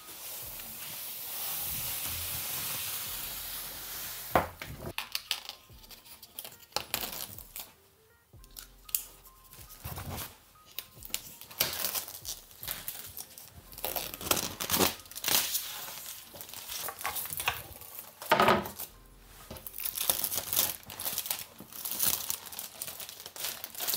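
Plastic packaging crinkling and rustling, with scattered short clicks and knocks, as the parts of a couch gaming lapboard are unpacked and handled. A steady hissing rustle fills the first few seconds.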